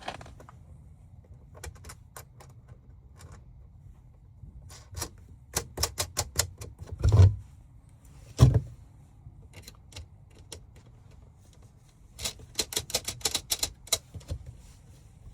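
Runs of sharp metallic clicks, about five a second, with two heavier knocks between them: hand-tool work on the air handler's sheet metal while the nuts that hold the UV light on are fastened.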